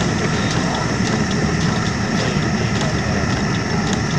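Thomas & Smith Ericsson-type hot air pumping engine running, with a light regular click about twice a second over a steady low rumble.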